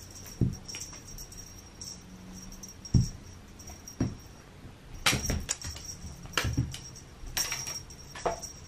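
A cat playing with a dragonfly toy on a carpet: a few sharp dull thumps as it pounces and hits the floor, then bouts of scuffling and light rattling as it bats and grabs the toy.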